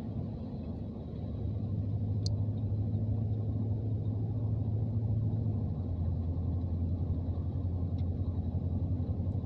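Steady low rumble of a car driving, engine and tyres heard from inside the cabin, growing a little louder after about a second.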